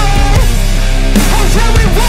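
Loud hard-rock background music with a steady bass and a heavy drum beat.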